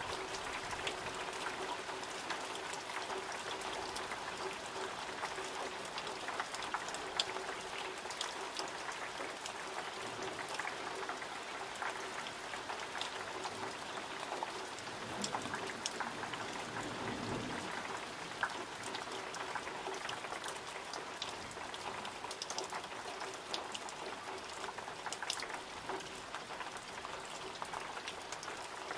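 Steady summer rain falling, with many separate drops striking close by, scattered sharp ticks over an even wash of rain noise.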